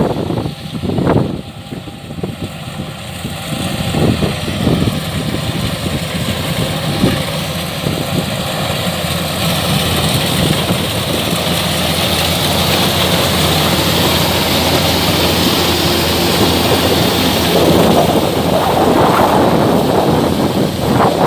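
Kubota DC-105X combine harvester running steadily while harvesting rice: a diesel engine drone under the rushing noise of the cutting and threshing gear. A few short noisy bursts come near the start.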